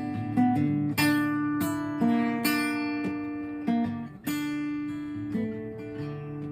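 Acoustic guitar strumming chords, each struck about once a second and left to ring.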